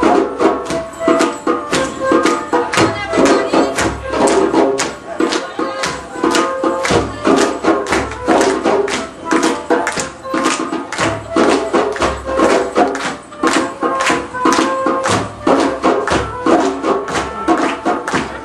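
Live hand-drum ensemble playing a fast, steady dance rhythm, with a sustained melody line over the drums.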